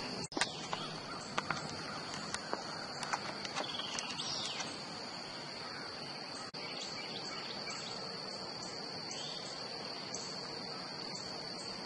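Steady high-pitched insect drone from crickets, with a few light clicks in the first few seconds and a couple of faint bird chirps.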